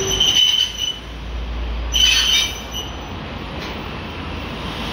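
Toyohashi Railroad 780-series streetcar rolling slowly into a stop over a steady low rumble. Its wheels give two short high squeals, one right at the start and one about two seconds in.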